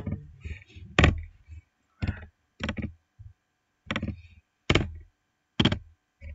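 Computer mouse clicking: about six sharp clicks, irregularly spaced a half-second to a second and a half apart, as a formula is edited and closed on screen.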